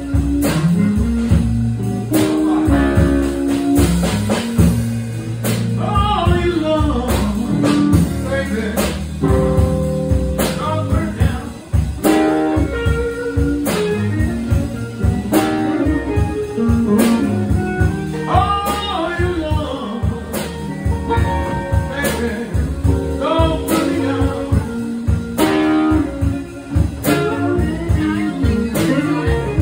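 Live blues band playing: guitars with singing over a steady beat.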